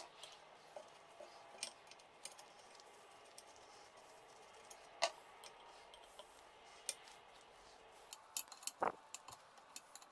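Faint, scattered metal clicks and clinks of a wrench working the bolts that hold a rusty clutch pressure plate to its flywheel, with a quick cluster of sharper clinks about eight to nine seconds in.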